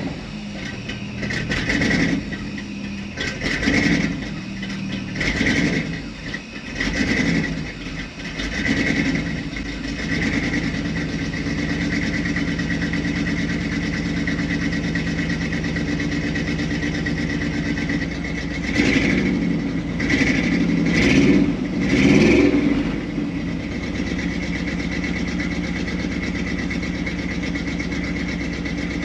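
1964 Chevy C30 panel truck engine, just started, blipped in six short revs about a second and a half apart, then idling steadily. About two-thirds of the way through it is revved three more times before settling back to a steady idle.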